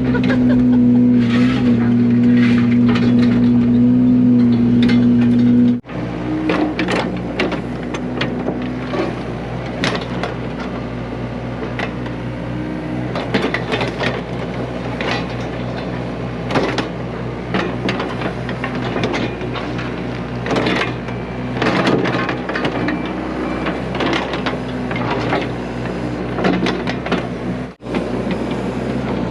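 Yanmar mini excavator's diesel engine running under load while its 4-foot tilt grading bucket digs and scoops soil, with many scrapes, clicks and clunks of dirt and stones. A steady, higher engine hum breaks off abruptly about six seconds in, giving way to a lower engine sound, and drops out briefly again near the end.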